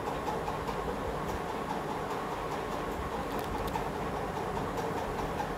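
Household electric flour mill (atta chakki) running steadily, grinding flour.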